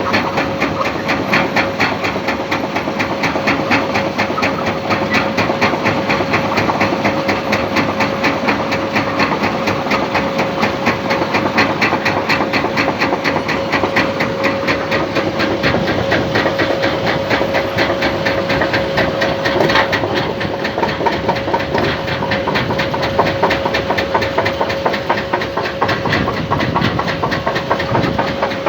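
Heavy vehicle engine running steadily, with a rapid, even pulsing beat and a steady high whine over it.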